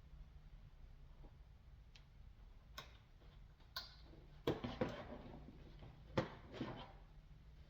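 Scattered clicks and knocks of tools and parts being handled, irregular and a few seconds apart, the sharpest clustered about four and a half to six seconds in, over a low steady hum.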